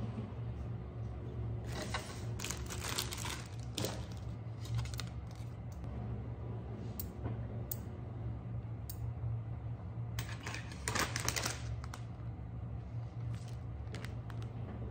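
Crinkling plastic packaging in two bursts, with scattered sharp clicks and clinks from metal scissor-style tongs and a glass bowl, over a low steady hum.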